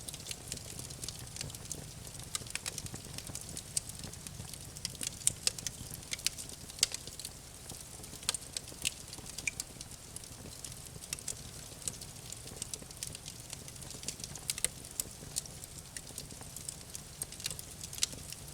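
Campfire burning, wood crackling and popping in irregular sharp snaps over a soft low rumble of the flames.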